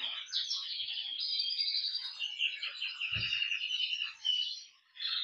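Spanish Timbrado canaries singing a run of trills and chirps, with a short pause near the end. A brief low thud comes about three seconds in.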